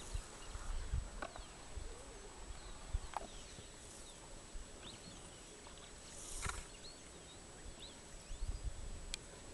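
African bush elephant feeding on grass: faint scattered rustles and snaps with a few soft low thumps. A few faint bird chirps sound in the background.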